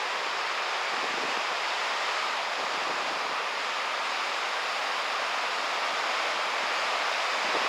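Steady rush of wind and surf noise.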